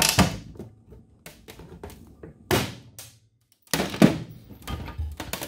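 Hand pop-rivet gun setting a 3/16 in rivet through an aluminium bracket into an aluminium diamond-plate deck: a sharp snap right at the start as the mandrel breaks. Scattered clicks follow, then louder metallic knocks about halfway through and again near the end, the loudest, as the tool and metal parts are handled on the deck.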